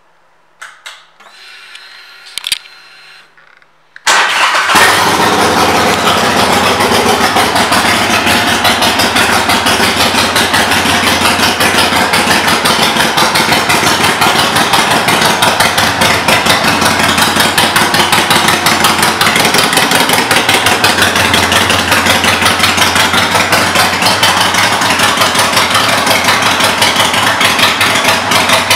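Harley-Davidson Iron 883's air-cooled 883 cc V-twin, with aftermarket Vance & Hines pipes, starting: a quieter whir for a few seconds, then the engine fires about four seconds in and runs loud and steady at idle.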